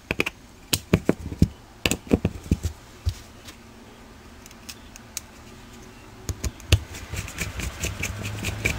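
Small metallic clicks and taps of a hex driver working the end-bell screws of a brushless RC motor's metal can, with a quieter stretch in the middle. A steady noise begins to rise near the end.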